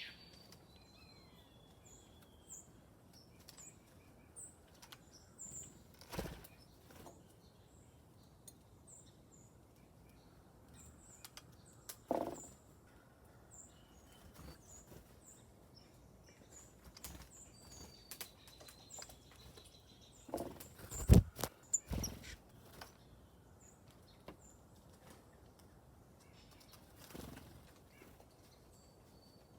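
Small songbirds chirping: short, high chirps repeated throughout, with a few longer calls. Several sudden loud thumps close by come about six and twelve seconds in, and the loudest come in a cluster about twenty to twenty-two seconds in.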